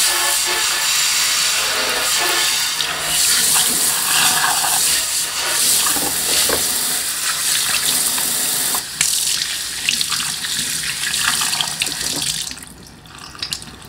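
Kitchen faucet's pull-down sprayer running into a stainless steel sink, water spattering on the steel and running over a hand rinsed under it. The water stops near the end, followed by a few light clicks.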